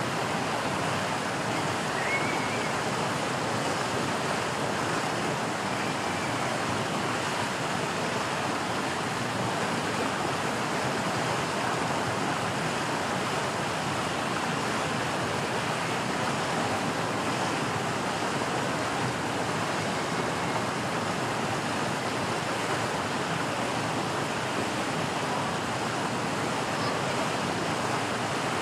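Steady, even rushing noise that holds at one level throughout, with a few faint short high chirps.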